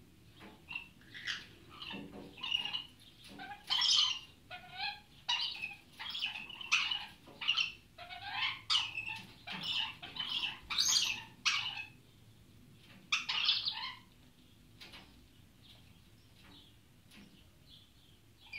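A pair of Goldie's lorikeets calling while they play: a quick run of shrill, screechy chirps and squawks that sweep up and down in pitch. The calls die away at about fourteen seconds, leaving one short call near the end.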